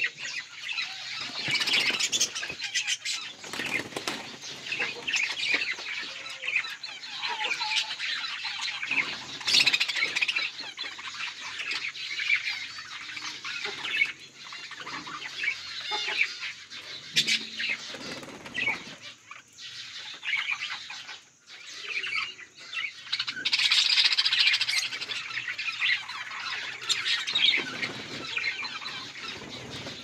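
A flock of budgerigars chattering and chirping continuously, many small, busy calls overlapping at once.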